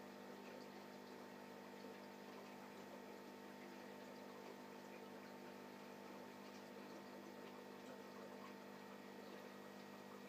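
Near silence: a faint, steady hum made of several fixed tones, with a light hiss and no distinct events.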